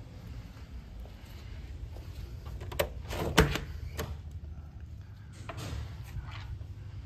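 Front door being unlatched and pushed open: a few sharp clicks from the latch and handle, the loudest about three and a half seconds in, then fainter scraping as the door swings open.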